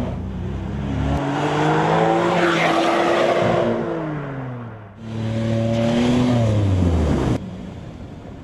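A car engine revving, its pitch rising and then falling. It starts again high and falls off before cutting out abruptly about seven seconds in.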